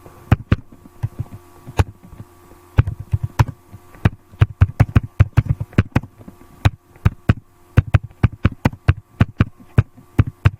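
Irregular sharp clicks and taps, a few at first and then several a second from about four seconds in, over a faint steady hum.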